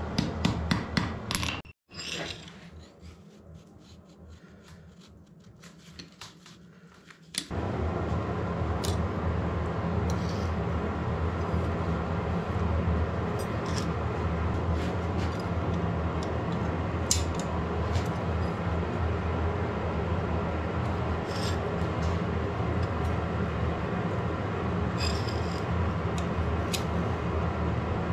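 A few hammer blows on a glowing iron bar on an anvil in the first second or two. After a quiet stretch, from about seven seconds in, a steady hum runs with occasional light metallic clinks as the hot spear parts are set together on the anvil with tongs.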